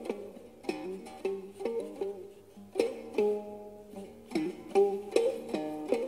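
Khse diev, the Khmer single-string gourd-resonated zither, plucked in a melody of short, fading notes at a few notes a second, with a note or two bending down in pitch.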